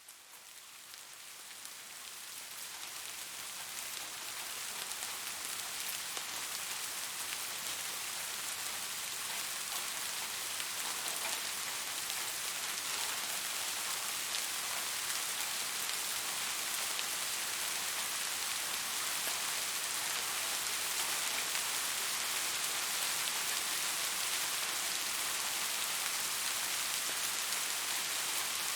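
Rain falling steadily on a surface: a dense, even hiss flecked with individual drop ticks, fading in over the first few seconds and then holding level.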